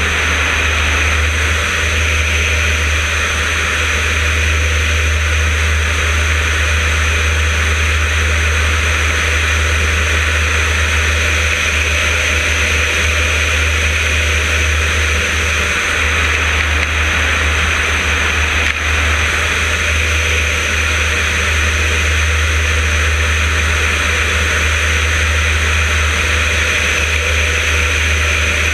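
Yak-52's nine-cylinder M-14P radial engine and propeller running steadily in flight, mixed with the rush of airflow over a wing-mounted camera.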